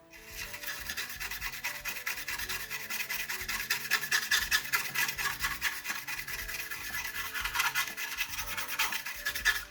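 Rapid back-and-forth scrubbing on a circuit board, cleaning up freshly soldered joints: many quick strokes a second that start and stop abruptly.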